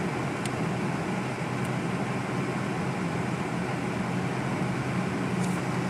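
Steady car cabin noise while driving: engine and road drone with the defroster fan blowing. A few faint ticks stand out briefly.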